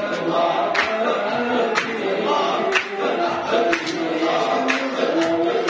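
A group of men chanting Sufi dhikr together in a Sammaniyah ratib, their voices in unison. A sharp clap lands about once a second, keeping time.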